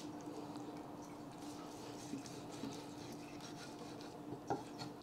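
Faint, soft slicing of a knife through a cooked steak on a wooden cutting board, over a steady faint hum, with a short knock near the end.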